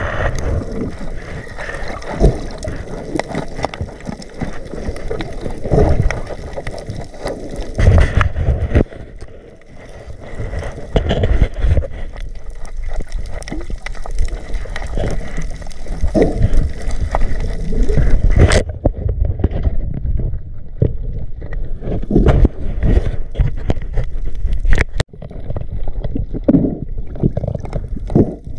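Muffled seawater sloshing and gurgling around the microphone, uneven and heavy in the low end with irregular low thumps, and two sharp clicks in the second half.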